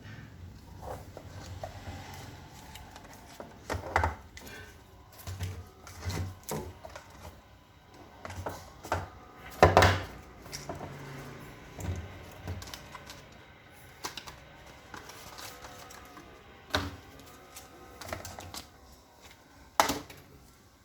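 Handling of a smartphone and its box: irregular clicks, taps and knocks, with a louder knock about ten seconds in.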